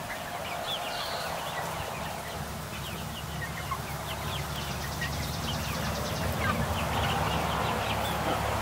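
A flock of young chickens clucking and peeping, with many short, quick calls throughout. A low steady hum joins underneath about three seconds in.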